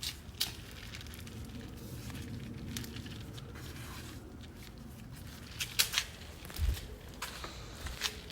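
Scattered rustling and clicking handling noises over a low steady background, with a louder cluster of clicks a little past halfway and a low thump soon after.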